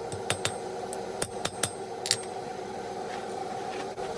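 Hand hammer striking a hot steel bar on an anvil: about six light, ringing blows in the first two seconds, straightening the bar, then only a steady low hum.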